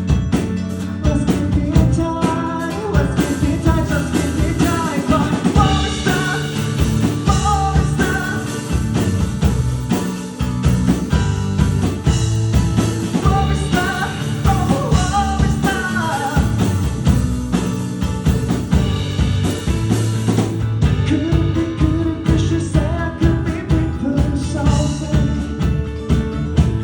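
Rock band playing live, with drums, bass and electric guitars under a sung vocal line.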